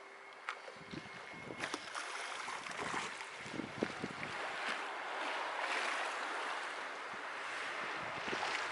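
Sea water lapping and splashing against a concrete seawall, starting about a second in: an uneven rush with many small slaps.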